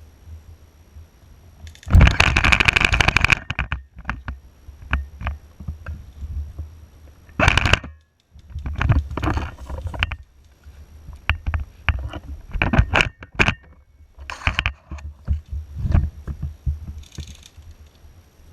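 Rapid run of clicks lasting about a second and a half, starting about two seconds in, then scattered knocks, rustling and low rumble of movement against the microphone.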